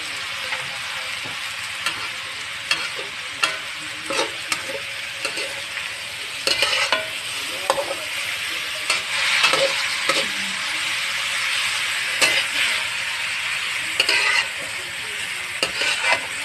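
Chopped banana blossom and longganisa sizzling in a metal wok while a metal spatula stirs them, scraping and clacking against the pan again and again.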